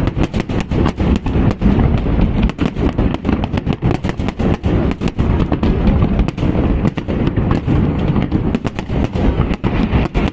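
Fireworks display: rapid, overlapping cracks and bangs of bursting shells over a continuous low rumble.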